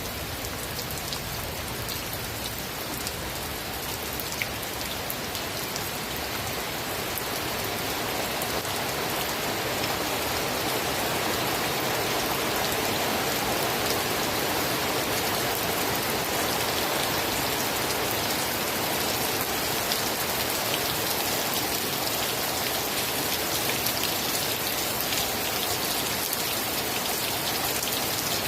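Steady heavy rain falling, an even hiss dotted with the ticks of individual drops, swelling a little over the first several seconds and then holding steady.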